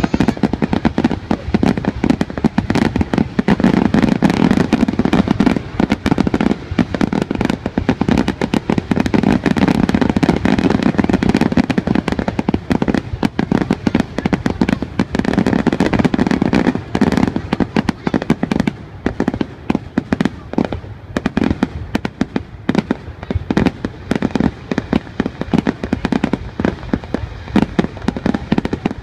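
Aerial fireworks display: shells bursting overhead in a rapid, continuous run of bangs and crackle, easing a little in the second half.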